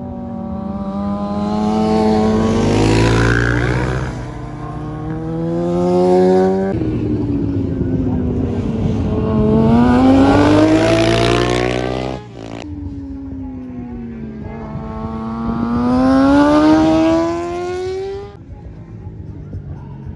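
600cc racing sport bikes passing through a corner in succession. Their high-revving engine notes fall and then climb again about three times as they brake and accelerate out, cutting off sharply about twelve seconds in.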